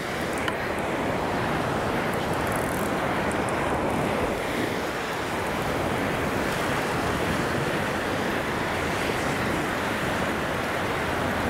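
Steady rush of surf washing up on the beach, mixed with wind blowing on the microphone.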